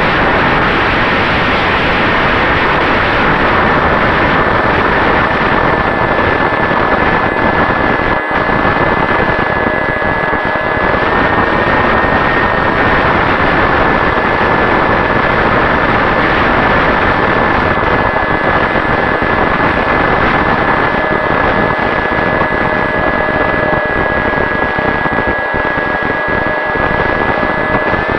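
Brushless electric motor of an RC flying wing (Turnigy 3542 1450kv on an 8x4 propeller) running, a thin steady whine that shifts slightly in pitch as the throttle changes, under a heavy rush of wind noise on the microphone.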